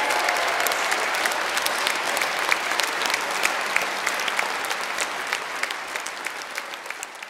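Concert audience applauding, many hands clapping with individual claps standing out, gradually fading out.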